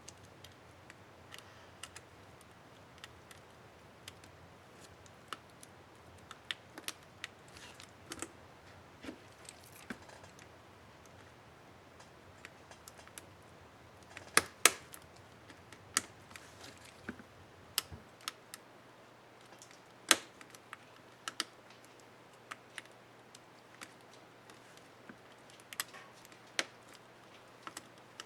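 Irregular small plastic clicks and snaps from an Asus K55A laptop keyboard's space bar keycap and its clips being handled, pressed and fitted. The loudest snaps come about halfway through, with another a few seconds later.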